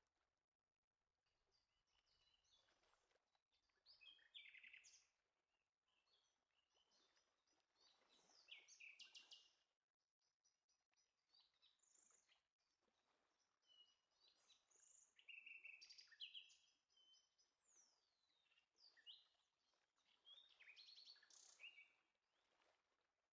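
Faint birdsong: several short chirping and trilling phrases, with a few quick sweeping notes, coming in groups every few seconds.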